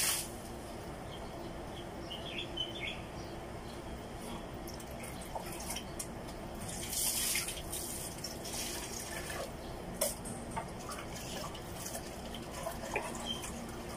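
Close-up eating sounds: wet chewing with scattered small clicks, and a brief rustle about seven seconds in as fresh vegetables and salad are picked up by hand.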